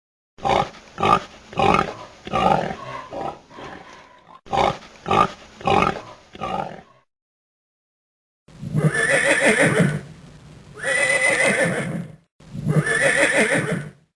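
Horse whinnying, a run of quick fading pulses heard twice. It is followed by three long, wavering calls of about two seconds each.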